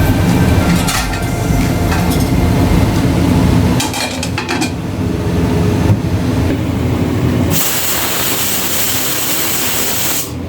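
Pressure cooker letting off steam, a steady loud hiss that starts about seven and a half seconds in, lasts about three seconds and cuts off suddenly: the cooker's whistle, a sign that pressure has built up inside. Before it, low rumbling with light clatter.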